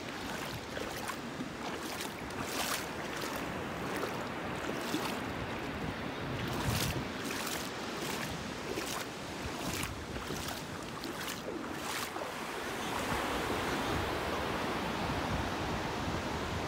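Ocean surf washing steadily, with some wind on the microphone. For the first twelve seconds it is overlaid by regular splashes, steps wading through shallow water about once every three-quarters of a second, which then stop.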